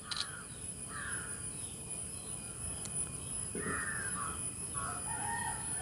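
A crow cawing several times, short harsh calls spaced irregularly, the last one a little longer near the end.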